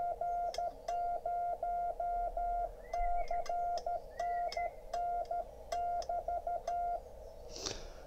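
CW sidetone from a Yaesu FTDX10 transceiver's built-in keyer: a steady mid-pitched beep keyed into Morse dots and dashes by a homemade paddle, each element starting and ending with a light click. The rig is in CW mode with break-in off, so the tone is local monitoring only and nothing is transmitted. The keying stops about a second before the end.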